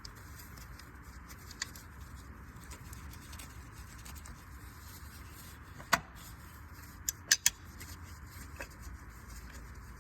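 Metal parts clicking as the coil-pack mounting bolts are handled and threaded in by hand: one sharp click about six seconds in, then three quick clicks a second later, over a steady low hum.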